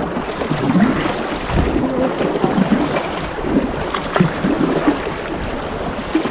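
Sea water splashing and sloshing around an inflatable kayak, with wind buffeting the microphone.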